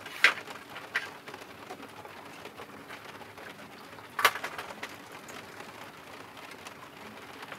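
Doves cooing softly, with a few sharp knocks, the loudest about a quarter second in and about four seconds in.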